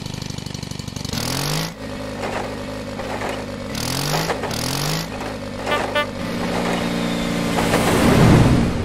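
Small tractor engine chugging at first, then revving in short rising bursts a few times. About three quarters of the way in it settles into a steadier run that swells to its loudest shortly before the end, then falls away.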